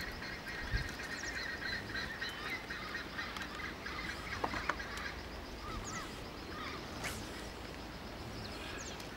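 A steady chorus of wetland animal calls: rapid repeated high notes with scattered short chirps, over a low background rumble.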